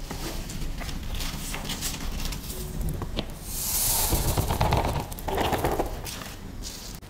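Loose coloured sand hissing as it pours off a tilted sheet of sticker paper about halfway through, with paper crinkling and handling knocks around it.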